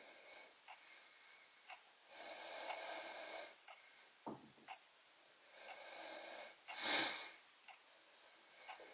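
Faint, close-miked sound of steel tweezers plucking beard stubble hair by hair, with small sharp clicks about once a second. Under it a person breathes out through the nose: two soft hissing breaths, then a louder exhale about seven seconds in.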